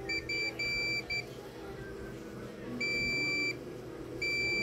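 Multimeter continuity beeper sounding as the probe touches capacitors on a laptop motherboard: a few short broken chirps, then a steady beep of under a second, then a longer beep starting near the end. Each beep marks continuity to ground, the sign that the 19-volt rail is shorted.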